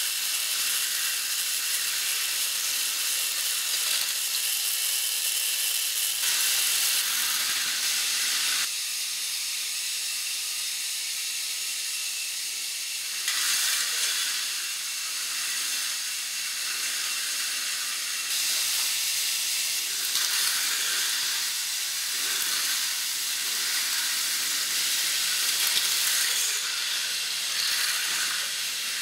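K'nex roller coaster train rolling along its plastic tube track: a steady rushing hiss that shifts abruptly in level and tone every few seconds.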